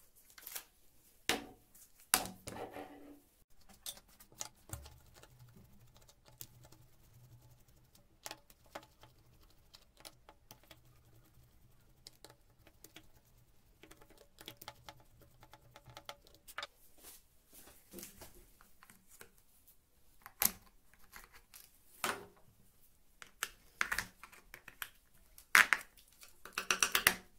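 Scattered quiet clicks and taps of a plastic cordless drill being taken apart by hand: a screwdriver turning out the housing screws, and small screws and plastic parts set down on a wooden tabletop.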